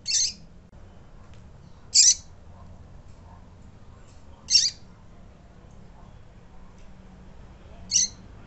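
Female double-collared seedeater (coleiro) calling: four short, high call notes spaced about two to three seconds apart.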